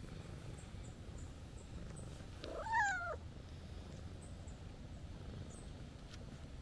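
Calico cat giving one short meow about two and a half seconds in, rising and then falling in pitch, over a low steady purr as it is stroked.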